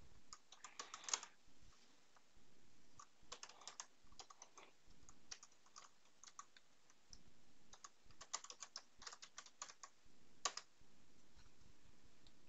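Computer keyboard typing, faint, in several short bursts of keystrokes with pauses between, and one louder single click about ten and a half seconds in.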